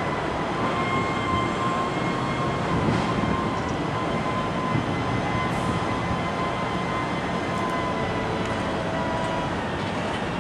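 Train running: a steady rumble with a faint steady whine over it.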